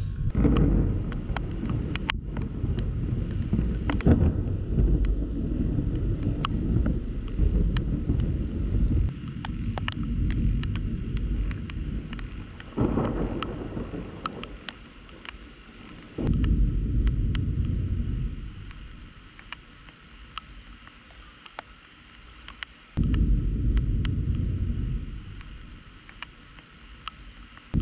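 Thunder rumbling in long swells that rise and fade several times over steady rain, with scattered sharp ticks of raindrops striking the camera's waterproof housing.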